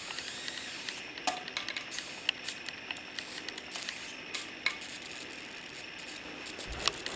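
High-voltage arc from the flyback transformer (line output transformer) of a gutted Optima KM-12 CRT monitor: a steady sizzling hiss broken by irregular sharp snaps and crackles. The owner takes it that he has overdriven the flyback.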